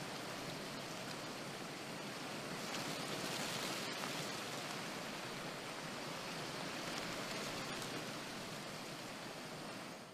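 Faint, steady outdoor background hiss, even and without distinct events.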